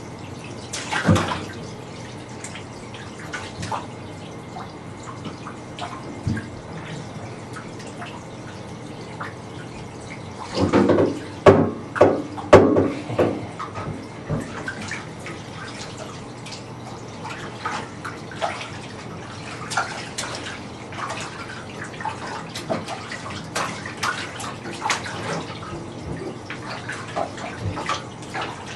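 Bathwater splashing and dripping in a bathtub as a small child is washed: many small splashes and drips, with a louder run of splashes about ten to thirteen seconds in.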